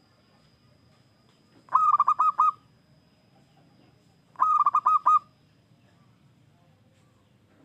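Zebra dove (perkutut) singing: two quick phrases of four or five staccato coos each, about two and a half seconds apart.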